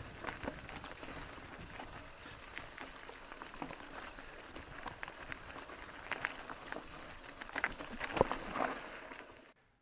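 Mountain bike riding down a rocky singletrack: tyres crunching over loose stones and the bike knocking and rattling at irregular intervals, over a steady hiss. A sharper knock comes about eight seconds in, and the sound cuts off suddenly near the end.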